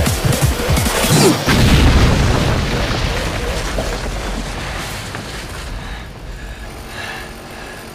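A heavy boom with rumbling from an anime fight's sound effects, dying away over several seconds.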